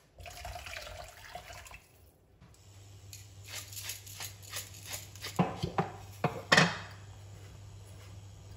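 Water poured from a glass measuring jug into a steel saucepan of vegetables for about two seconds. Then a hand-turned salt mill grinds over the pot in a quick run of short crunching clicks, ending in a few louder knocks.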